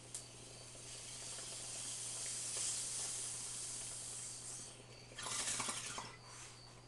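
Glass water bong being hit: a steady hiss of air drawn through the bowl and water, swelling over about four seconds, then a short, louder pull about five seconds in.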